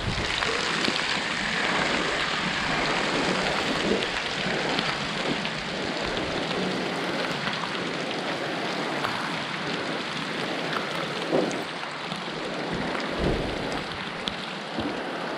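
Heavy rain falling on the shed's corrugated roof and pouring off its edge in streams: a steady, dense hiss with a few sharper knocks.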